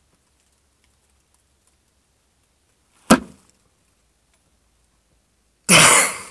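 Mostly quiet, then a single hand slap on a wooden bongo drum about three seconds in, its drumhead ringing briefly. Near the end, a short loud rush of noise.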